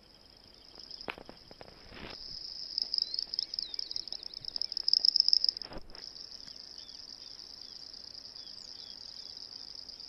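Small frogs calling from the wet grass in a steady high-pitched trill, with a louder run of quick chirps from about three to five and a half seconds in. Grass rustles a few times in the first two seconds and once just before six seconds.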